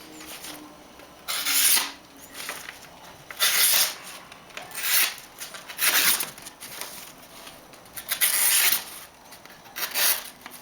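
Carbon-steel Mora Bushcraft Triflex knife blade slicing through paper in about six strokes, a second or two apart. This is a sharpness test after use, and the edge still cuts fairly well.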